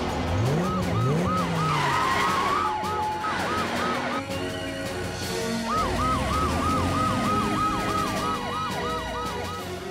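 Cartoon police-car siren in quick repeated up-and-down sweeps, about three a second, over background music; it drops out a little after four seconds in and starts again near six seconds.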